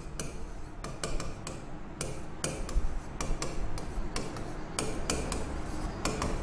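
Stylus tapping and scraping on the glass face of an interactive touchscreen board during handwriting, heard as an irregular run of sharp clicks, several a second.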